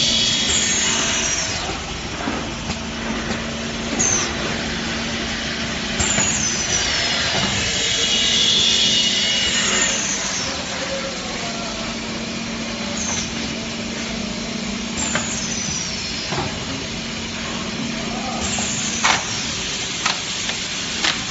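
Horizontal cup popcorn filling and sealing machine running: a steady motor hum with a high falling hiss every two to four seconds as it cycles, and a few sharp mechanical clicks near the end.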